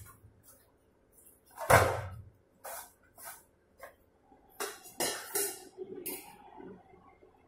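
Hands kneading and pressing dough in a stainless-steel bowl, giving a series of irregular thumps and scrapes against the bowl. The loudest is a heavy thud about two seconds in, and a cluster of shorter knocks comes a little past the halfway point.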